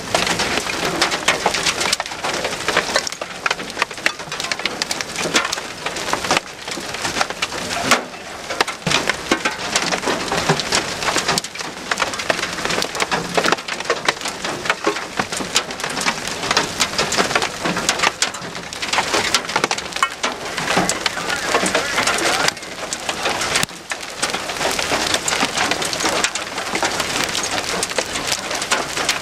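Large hail falling hard: a dense, continuous clatter of hailstones striking the vehicle and the ground.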